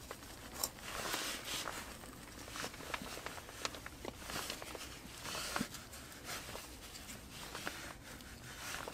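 Split sticks of firewood being laid into a mud stove's firebox over a small shaving-kindled fire: scattered light clicks and knocks of wood on wood and clay, with rustling and the fire crackling.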